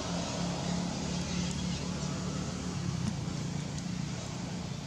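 A motor running steadily, a continuous low hum over a background of even noise.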